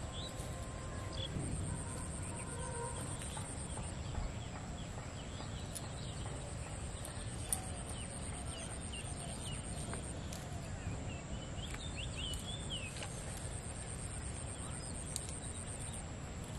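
Outdoor rice-field ambience: birds chirping now and then, most densely about two-thirds of the way through, over a steady high-pitched whine and a low steady rumble.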